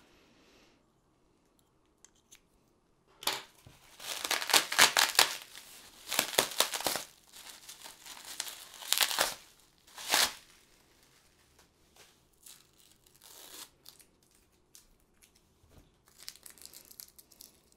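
Plastic bubble wrap crinkling and tearing as it is pulled off a rolled canvas, in loud bursts after a quiet first few seconds, then lighter rustling near the end.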